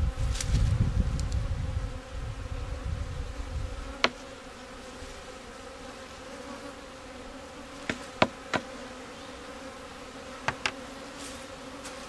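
Honeybees buzzing around a hive: a steady hum. A low rumble fills the first few seconds, and a few sharp knocks come at about four seconds, twice around eight seconds and twice near ten and a half seconds.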